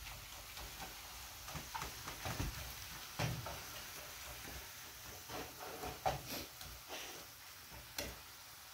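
Ground beef frying in a metal skillet, a spatula scraping and knocking against the pan as the meat is stirred and broken up, over a faint steady sizzle. The scrapes come irregularly, the loudest knocks about three and six seconds in.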